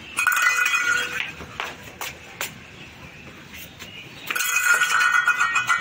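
Two drawn-out, high-pitched animal cries, the first about a second long and the second about two seconds long starting near the end, with a few light clicks between them.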